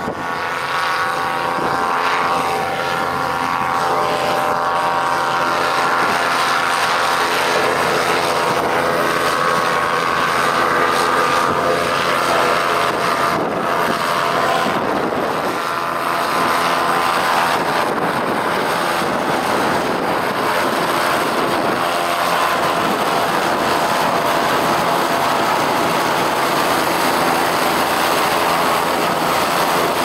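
Christy 463 PC hovercraft running across the water: its thrust and lift engines and caged thrust propeller make a steady loud drone, with the pitch shifting now and then.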